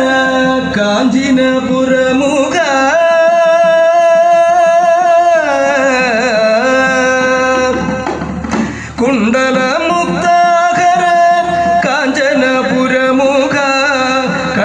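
A solo voice singing a slow, ornamented melody with long held notes that glide and waver. There is a brief break for breath a little past the middle.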